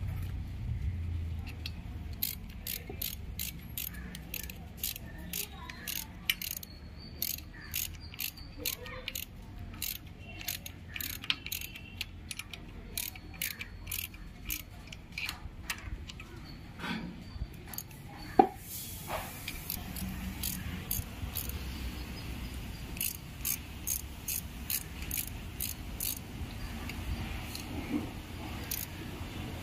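Sharp metallic clicks of hand tools, two or three a second, with one louder knock a little past halfway, while the timing chain tensioner is fitted on the engine.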